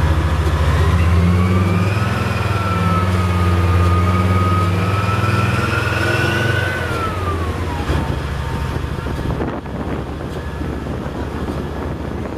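Type 74 tank's diesel engine running, with a whine that rises and holds for several seconds and then falls away about seven seconds in, as the hydropneumatic suspension shifts the hull's attitude. After that the engine settles back to a lower, steady idle.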